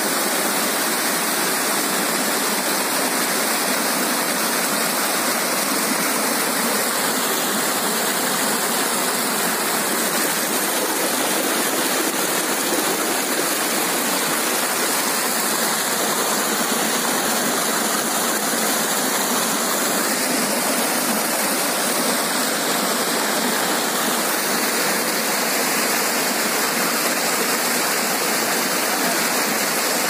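Rushing water of a waterfall and its rocky cascade: a steady, unbroken rush of white water.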